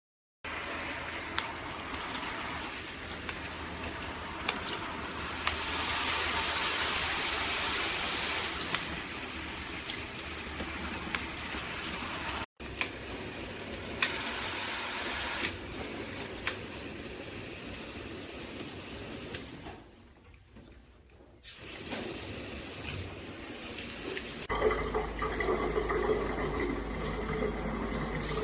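Water spraying from a FEELSO handheld shower head in several spliced clips. The flow falls away for about a second and a half around twenty seconds in, then picks up again.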